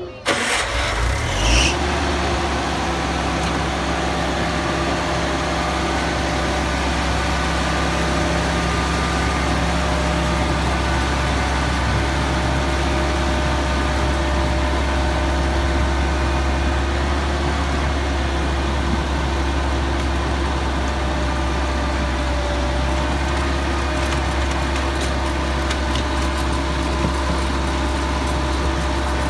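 Engine of a small ride-on park train locomotive running steadily as the train pulls out and travels along the track. There is a brief change in the first second or two, then an even, unbroken drone.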